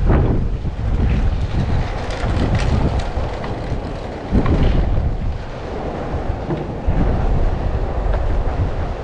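Wind buffeting the microphone in gusts, over a low rumble of vehicles.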